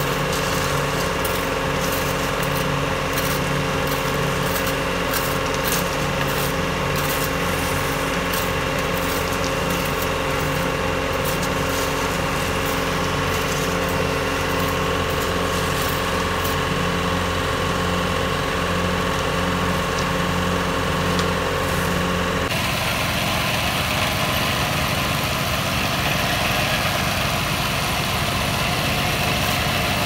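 Small single-cylinder petrol engine of a concrete vibrating screed running steadily, with light scraping and clinking from shovels working the wet concrete mix. About three-quarters of the way through the sound changes abruptly to a rougher, noisier engine sound.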